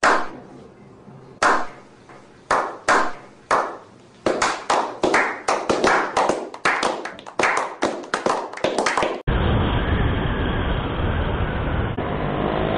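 A slow clap by a small group of people: a few single claps about a second apart that quicken into brisk applause, cut off suddenly about nine seconds in. Then a Honda Beat scooter's engine and road noise while riding, the engine rising near the end.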